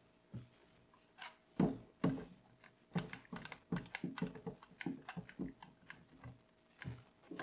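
One-handed bar clamp being squeezed tight across a mitred wooden picture frame in a clamping jig: a run of irregular clicks and knocks as the trigger is pumped to ratchet the jaw along the bar, with a louder knock about a second and a half in.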